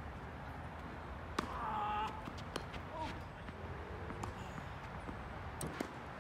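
Tennis rally: sharp pops of a tennis ball struck by rackets and bouncing on the court, several times a few seconds apart. A short high-pitched cry, the loudest sound, comes about a second and a half in.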